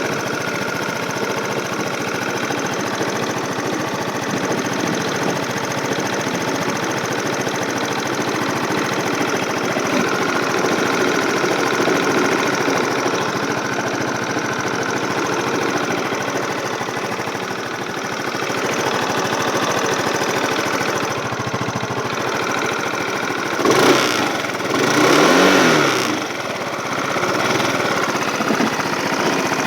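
Yamaha Cygnus X scooter's single-cylinder engine running steadily with an abnormal noise the owner is documenting, its cause not stated. The engine note swells briefly twice about three-quarters of the way through.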